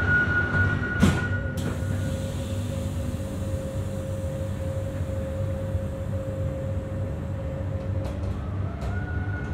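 Electric commuter train running on the rails: a steady low rumble with a steady whine over it. A sharp clunk comes about a second in, the whine drops to a lower pitch, then climbs back up near the end.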